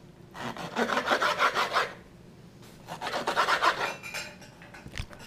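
Kitchen knife sawing back and forth through raw catfish fillet on a wooden cutting board, rasping against the wood. It comes in two spells of quick strokes, then a single sharp click near the end.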